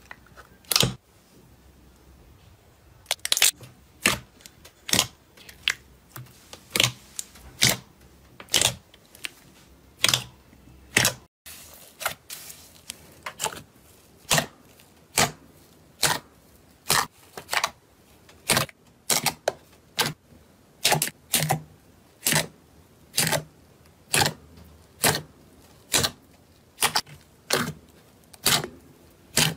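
Slime being squeezed and pressed by hand in a plastic tub, giving a string of sharp clicks and pops about one or two a second. Clear orange slime is pressed first; after a short break about eleven seconds in, light blue fluffy slime is kneaded.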